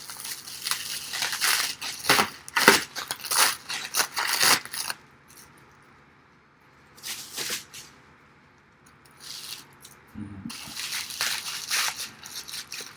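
Packing wrap being pulled and crumpled off by hand: loud crinkling and crackling in bursts for about five seconds, a short pause, then more crinkling near the end.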